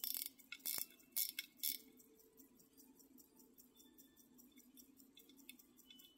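Small lever-set pocket watch ticking faintly and evenly, about five ticks a second. A few louder metallic clicks and scrapes in the first two seconds come from the crown and case being handled.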